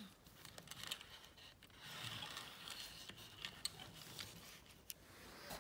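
Faint small clicks and a light rolling rustle from a 1/64 scale diecast pickup and boat trailer being pushed by hand along a toy road mat, a little louder around the middle.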